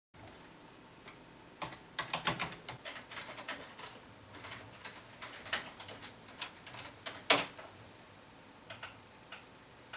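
Typing on a computer keyboard: a quick run of keystrokes, then scattered key taps, with one louder click about seven seconds in.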